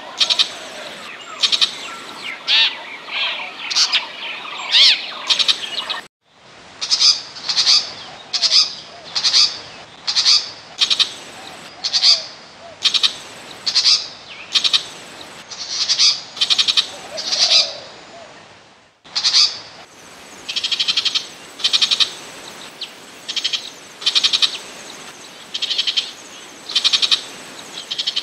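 Burmese shrike calling: a run of varied chattering, gliding notes, then a long series of short harsh call notes repeated about one and a half a second. The sound cuts out abruptly twice, about a fifth and two-thirds of the way in, like splices in a looped recording.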